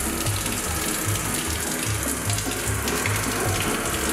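Shower head spraying water steadily onto a person in a waterproof rain jacket, under background music with a low bass line.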